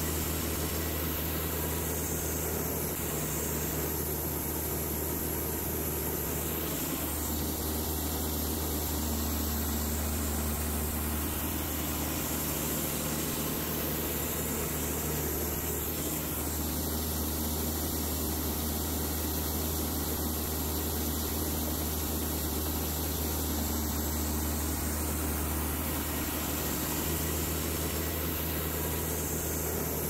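Baker 3665D band sawmill running steadily, its diesel engine humming under the hiss of the band saw as it saws cedar into 6x6 beams. The hiss shifts slightly about 7 and 16 seconds in.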